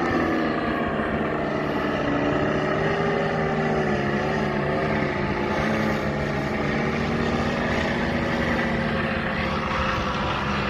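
Propeller motor of a small flying aircraft running steadily, its pitch wavering up and down as it works, over the low rumble of strong wind on the microphone.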